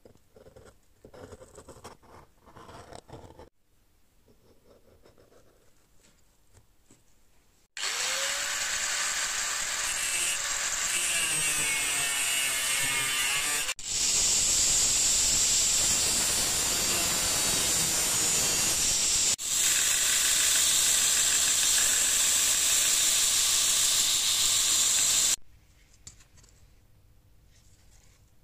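Faint scratching of a steel scriber on a brass plate, then an electric grinder spins up with a rising whine and cuts through a clamped brass plate, running loudly and steadily with a strong high hiss. It stops a few seconds before the end, leaving faint scribing again.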